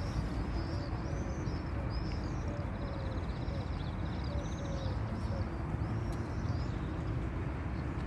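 Small songbirds chirping, a quick series of high arched notes, with a fast, even trill about three seconds in that lasts under two seconds; the chirping stops about six and a half seconds in. A steady low rumble lies underneath.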